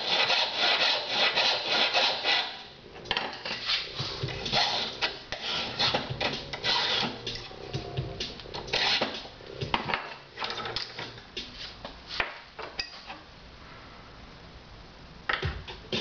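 Hand file rasping on a metal workpiece clamped in a bench vise, quick back-and-forth strokes for the first couple of seconds, then scattered single strokes and light knocks of metal parts being handled.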